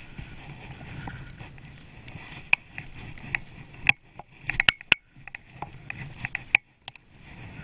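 Skis running through deep powder snow, a steady rushing hiss, with many sharp clicks and knocks that come thickest in the middle, where the rush drops away briefly a few times.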